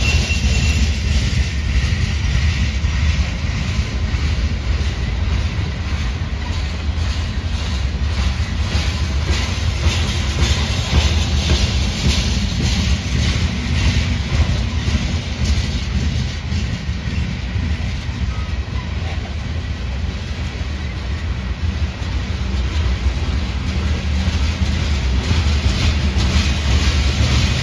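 Freight train of loaded covered hoppers and tank cars rolling past: a steady low rumble of steel wheels on rail, with a string of clicks as the wheels cross rail joints.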